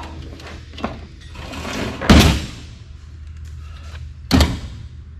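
Two loud clanks as parts of a garage door opener are handled while it is taken apart: a short scrape that ends in a heavy bang about two seconds in, and a sharper knock a couple of seconds later.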